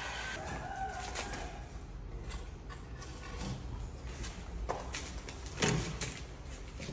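Heavy teak door leaf being lifted and shifted in its frame: wooden knocks, bumps and clatters, loudest in a pair of knocks about three quarters of the way through. A cordless drill's whine dies away in the first second.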